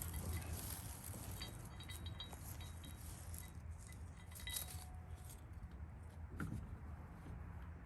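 Light metallic clinks and taps from small metal hardware being handled, with a few short ringing pings, over a steady low hum.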